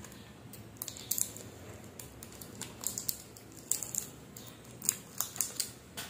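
Chocolate wrapper crinkling as it is unwrapped by hand: a run of irregular sharp crackles and rustles, loudest about a second in and again between three and five and a half seconds.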